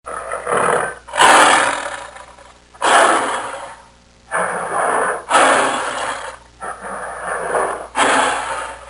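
Tiger roaring: a series of about seven short roars in quick succession, each under a second long, the loudest about a second in.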